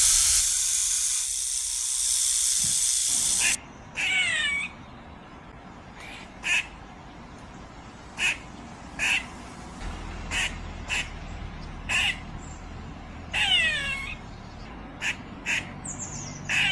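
A loud, steady hiss that cuts off about three and a half seconds in, followed by a series of short, harsh animal calls, each falling in pitch, about one a second.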